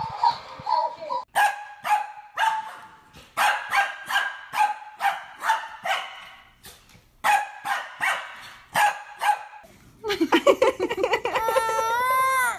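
A dog barking over and over in short, sharp, high-pitched barks, with a few brief gaps. Near the end the barking gives way to one long, loud, high cry that wavers and then rises in pitch.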